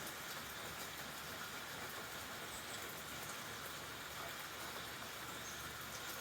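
Steady rain falling: an even, unbroken patter, with a few faint individual drop ticks now and then.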